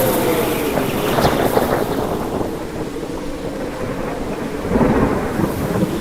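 Thunderstorm: heavy rain falling steadily under rolling thunder, with a crackle about a second in and a low rumble swelling near the end.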